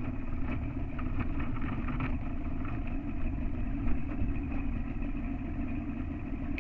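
Boat motor running steadily as the boat moves along, with a few light knocks in the first couple of seconds.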